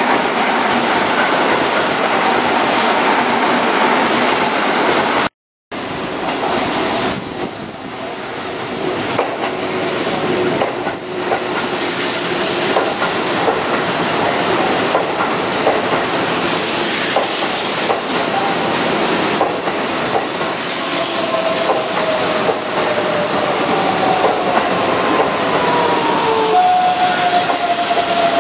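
Keihan 9000 series electric train running past, wheels clattering over the rails. In the later part, the whine of its VVVF inverter-driven motors comes through as several tones sliding slowly in pitch.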